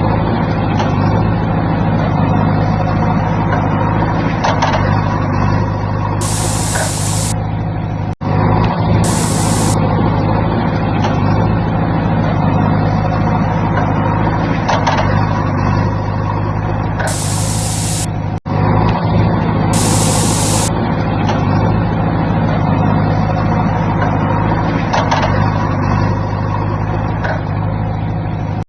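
Heavy diesel truck engine running steadily, with several sharp air-brake hisses. The same sequence repeats about every ten seconds, broken by two brief dropouts.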